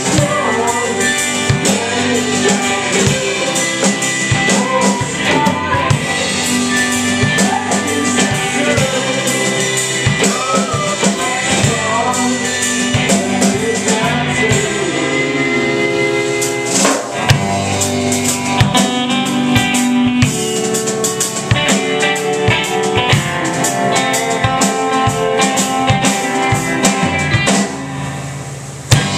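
Live rock band playing: drum kit, electric and acoustic guitars, with a man singing through roughly the first half. Near the end the band drops back for a moment, then a loud drum hit comes in.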